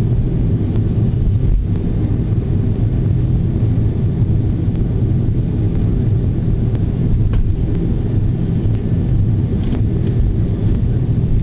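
Cabin noise inside an Avro RJ85 taxiing on the ground: a loud, steady low rumble and hum from its four turbofan engines and the wheels rolling on the taxiway, with a few faint ticks now and then.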